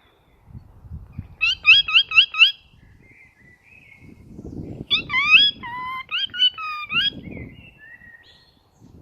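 Bird-like chirping calls: a quick run of five rising chirps about a second and a half in, then a longer series of chirps and warbling notes between about five and seven seconds, with low rustling underneath.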